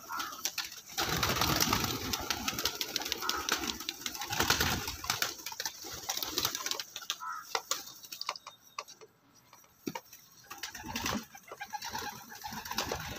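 Flock of young pigeons cooing and flapping their wings, with many sharp taps and scuffles as they crowd together. It goes quieter for a moment past the middle, then picks up again.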